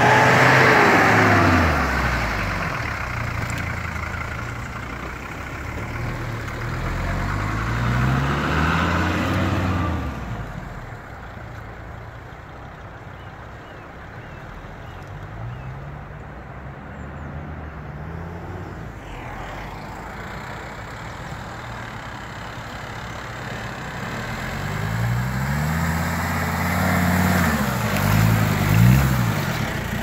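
Mercedes-Benz G-Class off-roaders' engines revving up and down in several passes while driving through a muddy field, fading in the middle and coming close again near the end. A single sharp knock shortly before the end.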